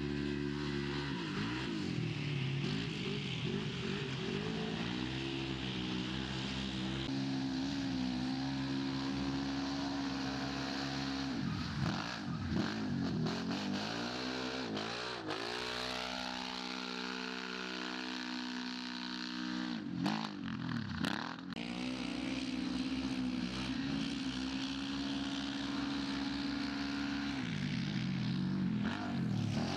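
Side-by-side UTV engine running at high revs, its pitch holding steady for a few seconds, then dropping sharply and climbing back several times as the throttle is lifted and reapplied.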